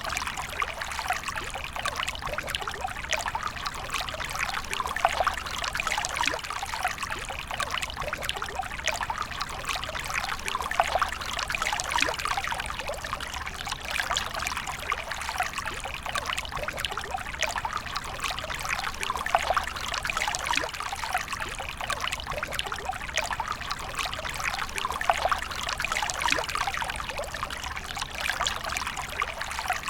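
A steady stream of water pouring and trickling, made of a dense, even patter of small splashes with no break.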